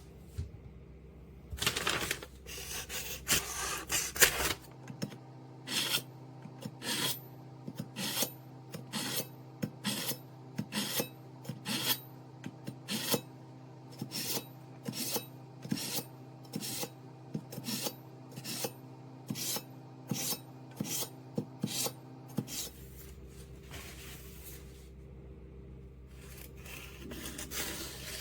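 A kitchen knife blade drawn again and again through the slots of a pull-through knife sharpener, in short strokes at about two a second after an irregular first flurry.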